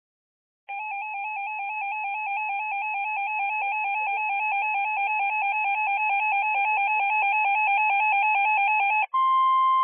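Electronic emergency alert tone warbling rapidly and evenly between two pitches for about eight seconds, slowly growing louder. About nine seconds in it switches to a steady single beep-like tone: the attention signal that opens a weather warning broadcast.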